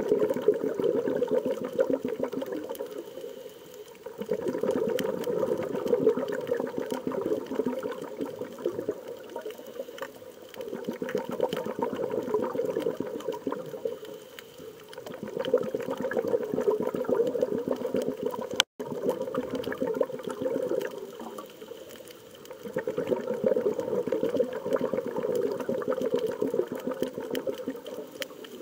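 Rushing water sound that swells and fades about every five to six seconds, with a brief cutout about two-thirds of the way through.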